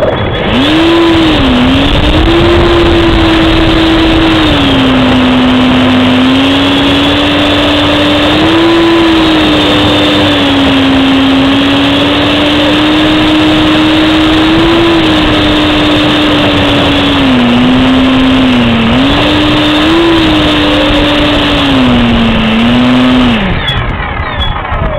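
Close-up sound of a radio-controlled L-59 jet model's motor running at taxi power: a steady drone whose pitch rises and dips as the throttle is worked. About 23 seconds in it is cut and winds down, falling in pitch.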